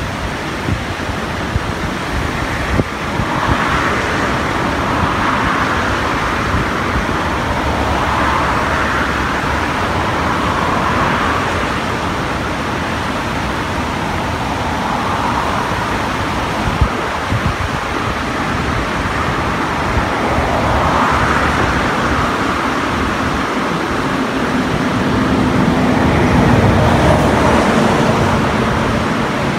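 Steady rush of a rain-swollen river, with road traffic passing: vehicle after vehicle swells and fades every few seconds, and a low engine hum near the end.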